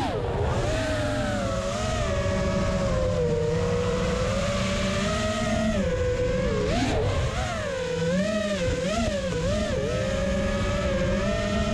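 The brushless motors and propellers of a 5-inch FPV freestyle quadcopter whine in flight. The pitch rises and falls with the throttle, with several quick swoops up and down in the second half.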